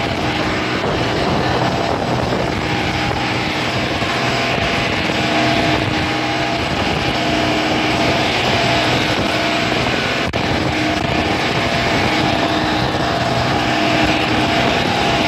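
Motorboat engine running steadily at speed, with water rushing and spraying past the hull. A single brief click about ten seconds in.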